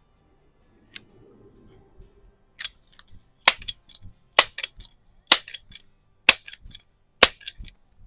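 Rochester Precision pump air rifle being pumped for the next shot: a sharp clack at the end of each stroke, about one a second, six loud strokes in a row, each with a few small rattling ticks after it.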